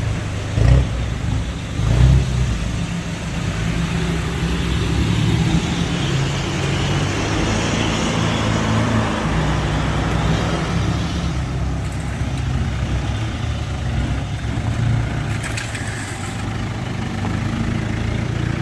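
Troller 4x4's diesel engine running steadily as the vehicle drives off-road, with a couple of knocks about a second or two in.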